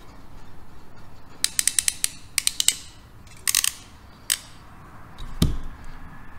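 Ratcheting crimping tool clicking as it is squeezed shut on a heat-shrink crimp connector on a wire: a quick run of ratchet clicks, then several shorter groups, and a single dull knock near the end.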